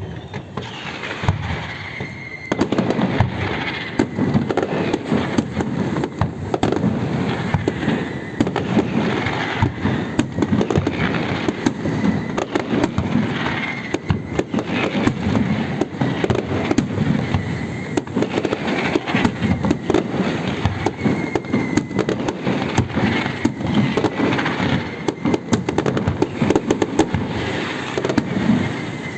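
Fireworks display: a dense, continuous barrage of bangs and crackling shells that builds up about two seconds in, with faint whistles from rising and falling shells.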